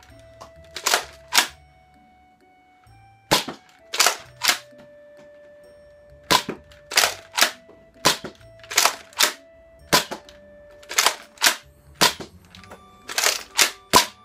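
Nerf Mega CycloneShock blaster cocked and fired again and again: sharp plastic clacks and air pops in groups of two or three, one group every second or two. Near the end the drum is empty and the blaster dry-fires. Light background music plays underneath.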